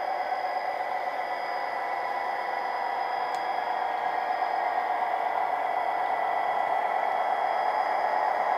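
Model Freightliner Class 57 diesel locomotive running along the layout's track toward the microphone, a steady whirring hum that grows gradually louder as it approaches.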